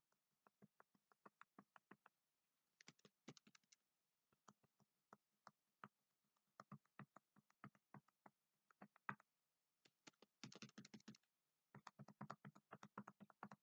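Faint, quick taps of a bundle of cotton buds dabbing paint onto paper, about three a second, with a short pause about two seconds in. A brief, denser patch of dabbing comes about ten seconds in, and the taps come faster and a little louder near the end.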